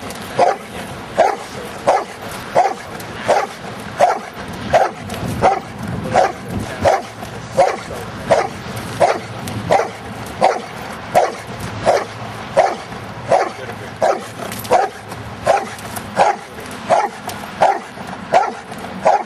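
Giant schnauzer barking steadily and tirelessly, about three barks every two seconds at an even pace.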